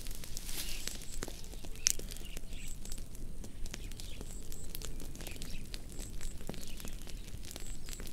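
A fire crackling, with irregular sharp pops over a low steady rumble; the loudest pop comes about two seconds in.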